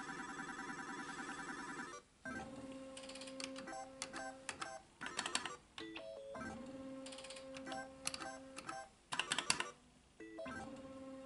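Solex 2 pachislot machine's electronic game sounds: a warbling, ringing jingle for the first two seconds, then two quick games, each a steady electronic tone while the reels spin, ended by a string of sharp clicks and blips as the reels are stopped.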